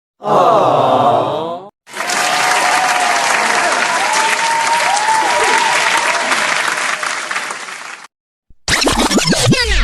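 A string of short meme sound effects. First comes a brief clip of falling, sliding tones. Then about six seconds of crowd applause with a few sliding tones over it, and near the end a short burst of steeply falling tones.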